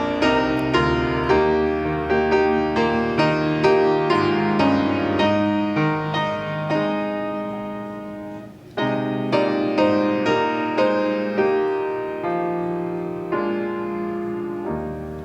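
Piano playing a slow, gentle melody with chords as background music for a period of congregational prayer. The notes are struck and left to ring, and the phrase breaks off briefly about halfway through before resuming.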